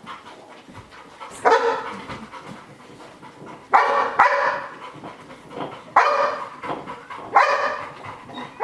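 A dog barking in single short barks, about five spaced a second or two apart, two of them close together near the middle. This is frustration barking from a dog held back behind a fence while another dog is trained, what the owner calls FOMO barking.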